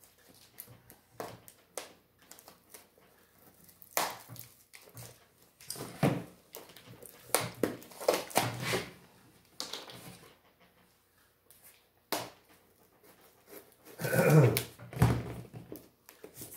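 Metal staples being pried up and pulled out of a cardboard shipping box with hand tools: scattered sharp clicks, scrapes and cardboard rustling. A short pitched vocal sound about fourteen seconds in is the loudest part.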